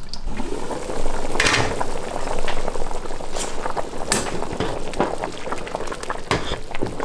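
A pot of Jamaican red peas soup with beef and ham bone boiling hard, bubbling steadily, with a few sharp knocks of a wooden spoon against the pot.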